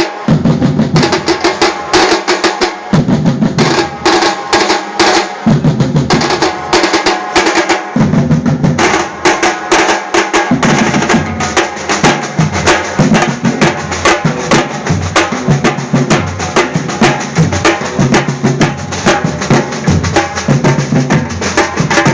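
Drums played in a fast, steady rhythm: a dense run of quick strokes over a deeper drum beat, which comes in phrases of about two and a half seconds at first and runs on without breaks from about halfway.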